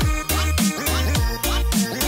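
Background music with a steady beat: deep bass notes and sliding synth tones.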